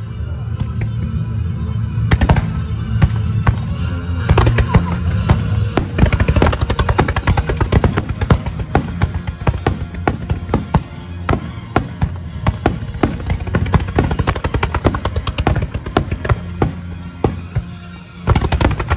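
Fireworks display set to music: a dense run of bangs and crackles over steady music, thickening after about six seconds. A brief lull near the end, then another volley.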